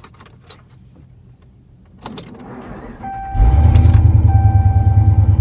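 A truck starting: small clicks and rattles, then a repeating electronic warning chime, then about three seconds in the engine catches and runs with a loud, deep rumble.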